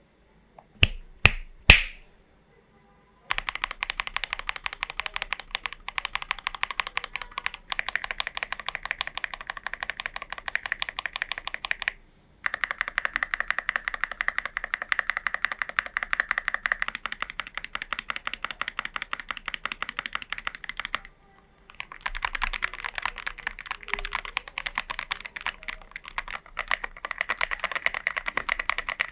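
Typing on a Glorious GMMK Pro mechanical keyboard with SA profile keycaps, tape-modded with the case foam removed. A few single key presses come first, then fast, continuous typing in three long runs with short pauses between them.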